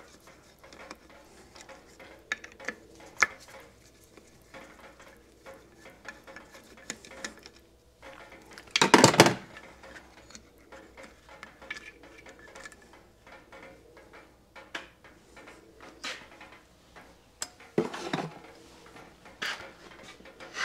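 Hand tools and small metal parts clinking and tapping against a two-stroke motorcycle engine's casing as the pump is taken off during disassembly. The clicks are scattered, with a louder metallic clatter about nine seconds in and another near eighteen seconds.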